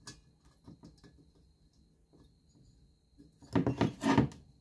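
Husqvarna 365 Special chainsaw's cylinder being handled and lifted off the piston and crankcase: a few light clicks, then a brief clatter of metal knocking and scraping about three and a half seconds in.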